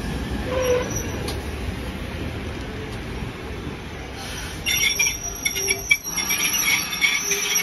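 Steam-hauled train rolling slowly past with a low rumble, then from about five seconds in the carriage wheels squeal high-pitched against the rails.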